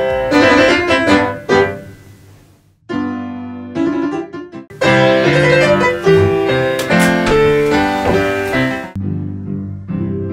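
Upright piano played with loud, full chords; the playing thins out briefly about two and a half seconds in, then builds again into a loud passage. About nine seconds in the sound cuts abruptly to a quieter passage.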